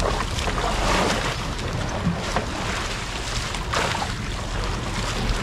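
Wind buffeting the microphone and sea water slapping against a small fishing boat, with a steady low rumble underneath and a few brief swells of splashing.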